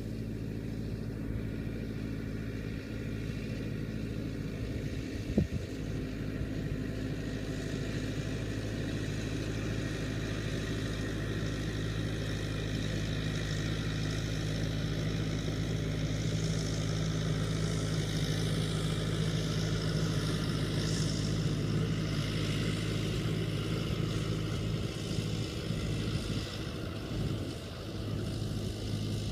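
Tractor diesel engine running steadily as it pulls a rotary hay tedder working through cut grass. The engine and tedder grow louder towards the middle and fade again near the end. There is a single sharp knock about five seconds in.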